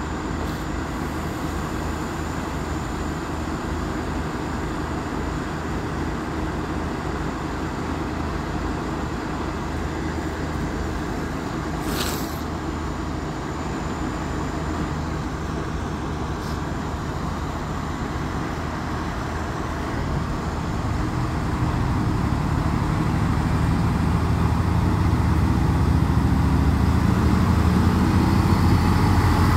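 Renfe Class 592 diesel multiple unit idling steadily at the platform. About two-thirds of the way through, its diesel engines rise in level and pitch as the train pulls away. A single short click sounds near the middle.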